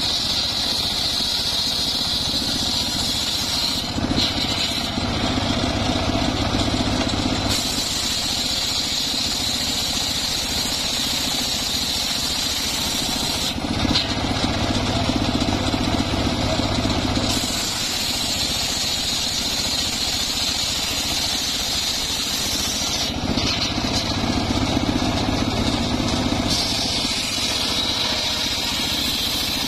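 Homemade engine-driven circular sawmill running, its blade ripping trembesi (rain tree) wood. The blade spins with a steady high whine, and three times, each for about three and a half seconds, the sound turns lower and fuller as the blade cuts through a plank.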